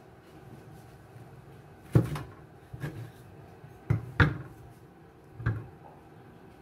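Sharp knocks of a kitchen knife and the sandwich being handled on a wooden cutting board, five in all, the loudest about two seconds in and just after four seconds in.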